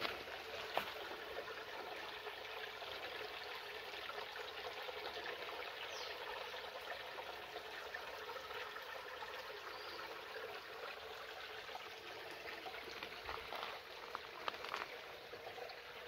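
Shallow stream trickling steadily over stones, with a few light knocks near the end.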